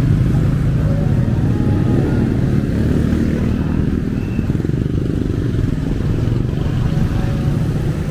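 Street traffic: motorcycles, motorcycle tricycles and cars running along a city street, a steady low engine rumble.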